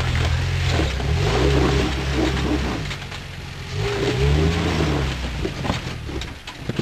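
Jeep Wrangler's engine revving up and easing off in low-speed surges as it climbs over boulders, with knocks and scrapes of tyres on rock. The engine drops away a little after five seconds, leaving a few sharp knocks.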